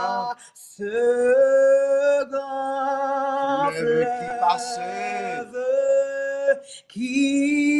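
A man and a woman singing a slow French hymn together without instruments, holding long notes, with short breaks between phrases.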